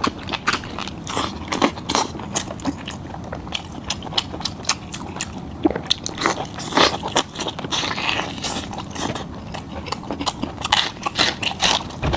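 Close-up mouth sounds of a person eating goat head meat: irregular sharp clicks and smacks of biting and chewing, several a second.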